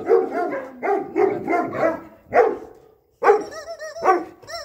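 Kenneled guard dogs barking repeatedly behind bars, a run of loud barks about twice a second, with a few short high yelps just past the middle.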